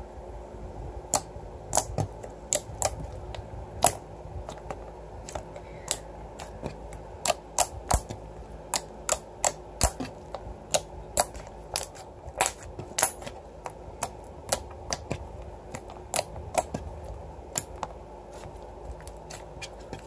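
Clicky slime being pressed, poked and stretched by hand, giving off sharp clicks and pops from trapped air at an irregular pace, about two a second.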